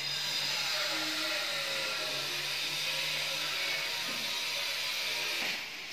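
A small electric motor whirring steadily, then cutting off abruptly about five and a half seconds in.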